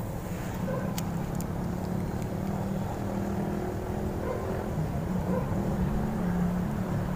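Steady low engine drone with a hum, with two faint clicks about a second in.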